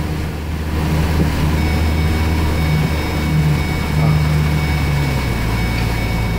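Truck engine running steadily while the truck drives through floodwater; its low humming note shifts lower about five seconds in. A faint, steady high-pitched whine sits above it from about a second and a half on.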